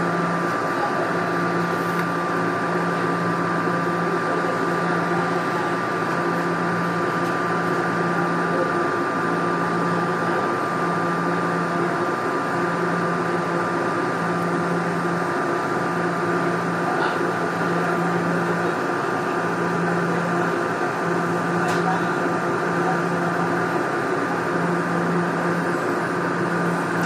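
Toronto Rocket subway train's onboard equipment humming steadily in the tunnel: a constant high whine over a low hum that cuts in and out in regular cycles of about a second and a half to two seconds.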